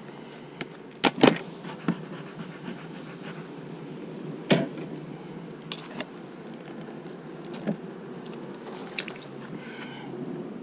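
Honeybees buzzing steadily at an open hive, with sharp knocks and clicks from the hive equipment being handled. The loudest knocks come about a second in and again around four and a half seconds in.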